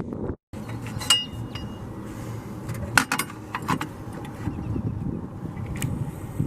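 Metal tools clinking and knocking against engine parts, with a ringing clink about a second in and a sharper knock about three seconds in, over a low steady rumble.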